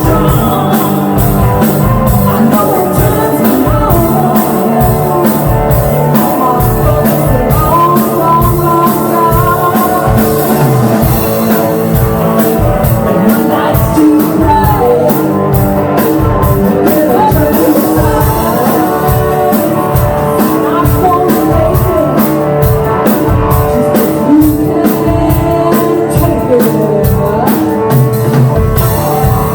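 Rock band playing: electric guitar, bass and drum kit, with a voice singing at times. The cymbals come in on a steady, busier beat about twelve seconds in.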